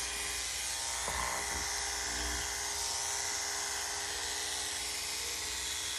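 Electric dog clippers with a number 10 blade and a snap-on guide comb buzzing steadily as they are pushed through a doodle's wavy coat.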